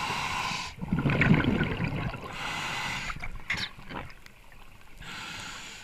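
Scuba diver breathing through a regulator underwater. A hissing inhale is followed by a burst of bubbling exhaust, then another hissing inhale, with a third inhale near the end.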